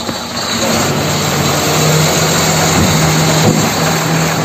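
An engine running with a steady low hum over a hiss; the hum sets in about a second in.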